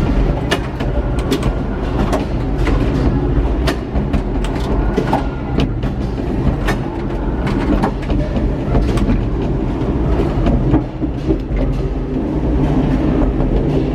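Gateway Arch tram capsule riding its track up inside the arch: a steady low rumble with frequent, irregular clicks and clanks.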